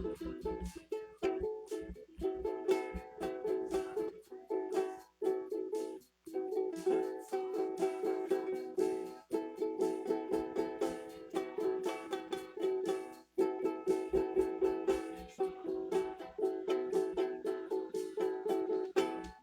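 Guitar strummed in fast repeated chords, with brief pauses about six seconds in and again near thirteen seconds; no singing.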